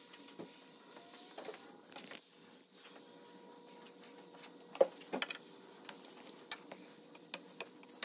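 Faint steady hum with scattered light clicks and taps, the sharpest tap about five seconds in.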